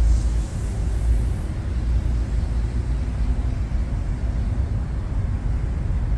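5-inch FPV quadcopter on Foxeer Donut 5145 toroidal propellers flying freestyle, heard through a phone's microphone: a steady, low-pitched hum and rumble that swells and eases with the throttle.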